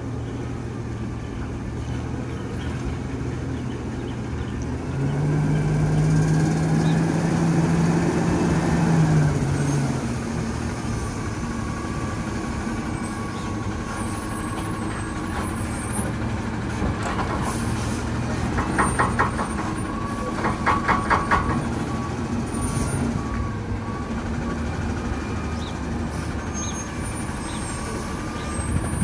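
Garbage truck's diesel engine running, revving up for about five seconds a few seconds in, then dropping back to idle. Two short bursts of rapid clatter come about two-thirds of the way through.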